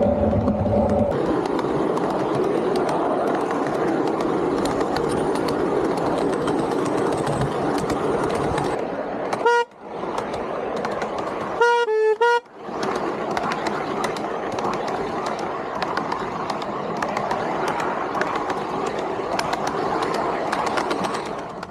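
Ride-on miniature railway locomotive running along its track with a steady running noise, its horn giving one short toot about halfway through and a double toot a couple of seconds later.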